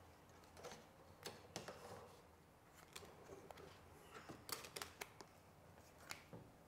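Faint scattered clicks and crinkles of vinyl wrap film being handled, pressed with a hand squeegee and tucked around a wheel-arch trim edge, with a small cluster of clicks a little past the middle.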